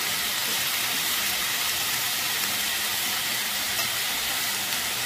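Vegetables frying in hot oil in a pot, with a steady sizzle.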